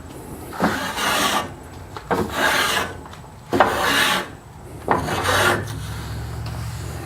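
Hand-tool blade (spokeshave or block plane) shaving a wooden paddle shaft: four cutting strokes about one and a half seconds apart, each opening with a click as the blade bites the wood.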